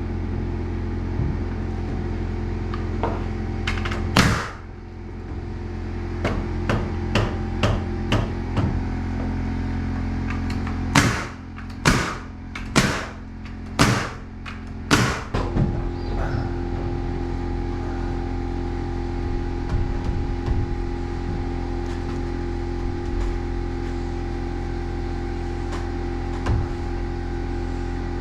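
Hammer blows driving nails into 2x4 framing lumber: a single hard strike, a run of lighter taps, then five strong blows about a second apart. A steady mechanical hum runs underneath.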